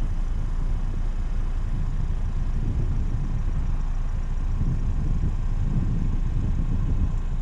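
Car driving at steady speed: a constant low rumble of engine and road noise.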